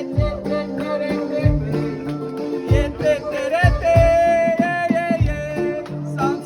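Handpan music with a voice singing: ringing melodic notes over low thumps that come about once a second, and a long held sung note in the middle.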